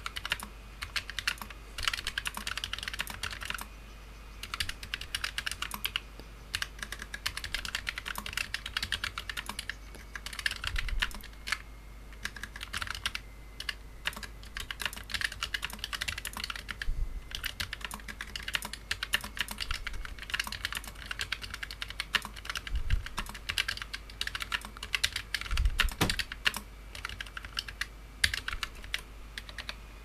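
Typing at about 65 words a minute on a Fnatic Streak65 low-profile keyboard with Fnatic Speed switches (rebranded Kailh Choc V2, dampened linear). It makes a dense, steady stream of short keystroke clicks with a few brief pauses.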